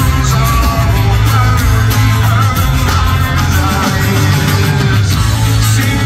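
Live rock band playing loud through a concert sound system, heard from the audience: drums, electric bass and acoustic guitar.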